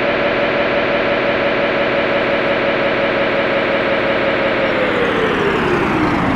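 A siren wailing: it holds one steady high tone, then winds down, its pitch falling over the last second and a half.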